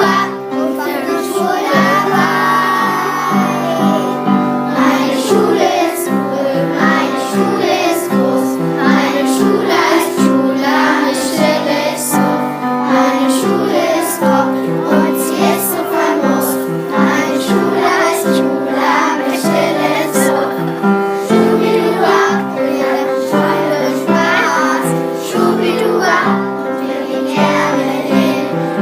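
Primary school children singing together over an instrumental backing track with a steady beat.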